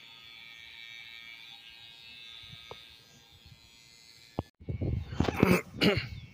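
Electric hair trimmer buzzing steadily as it trims hair, fading out about three seconds in. After a short break near the end come a few loud, irregular bumps and rustles.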